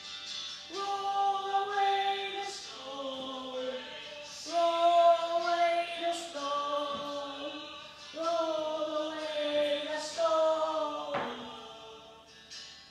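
Choir singing a slow hymn in long held notes, in three phrases, fading out near the end.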